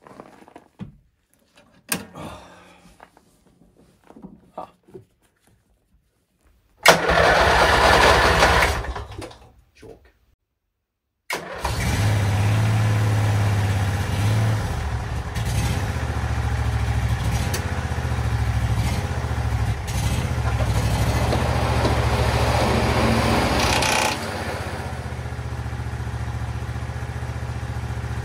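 A few light clicks, then a Husqvarna Rider 1200 ride-on mower's engine is cranked and starts with a loud burst. After a short break it runs steadily, and about 24 seconds in it settles to a lower, quieter running.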